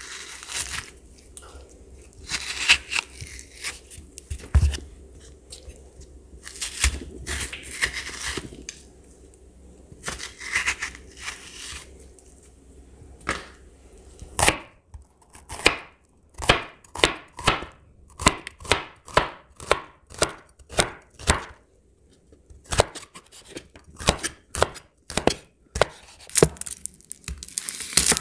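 Pith and seeds being scraped out of halved bitter melon (ampalaya) in several scraping strokes, each up to a second long. From about halfway, a knife slices the melon into crescents on a wooden cutting board in sharp, even chops about two a second, with a brief pause near the end.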